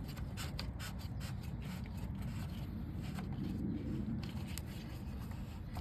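Light scraping and rubbing from parts being handled, in quick strokes at first that thin out to a few ticks, over a steady low rumble.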